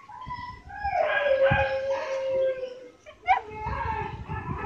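A dog crying in a long whining howl that slides down in pitch and then holds, followed a little past three seconds in by a shorter, sharp cry.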